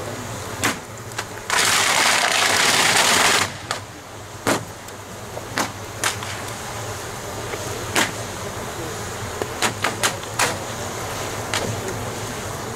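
A big fire of the burning wooden royal boat and its heaped paper offerings, crackling with sharp pops and cracks every second or so, several close together near the end. About a second and a half in, a loud rushing noise lasts about two seconds.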